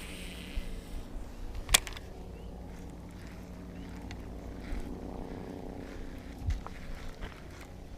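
Distant dirt bike engine running with a steady drone, swelling slightly midway, and a sharp click about two seconds in.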